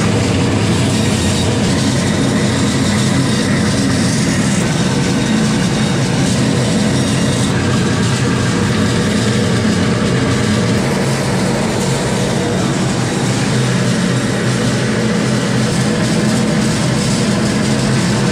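Meat band saw running steadily while it cuts a large jack crosswise into steaks, blade going through flesh and backbone.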